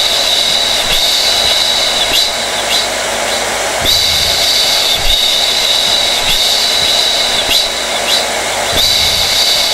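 Hair dryer running continuously: a steady rush of air under a high motor whine that wavers and dips briefly every second or so.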